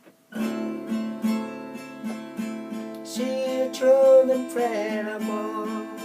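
Acoustic guitar strummed about twice a second, starting just after the beginning, with a singing voice coming in about three seconds in.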